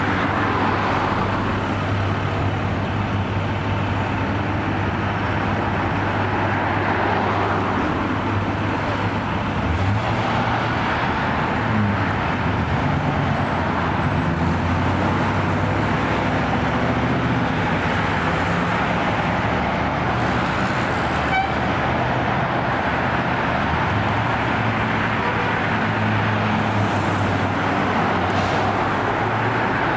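A fire truck's engine running in street traffic, its pitch shifting as it changes speed about ten seconds in.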